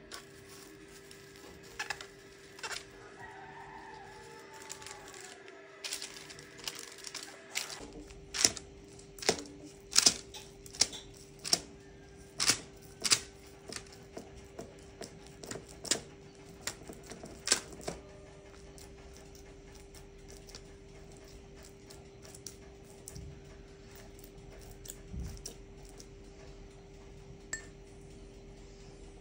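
Cling film crinkling as it is tucked over pide dough, then after a cut a run of sharp, sticky clicks and taps, one or two a second for about ten seconds, as egg-wet fingers pat and press the risen dough. A steady faint hum underlies it all.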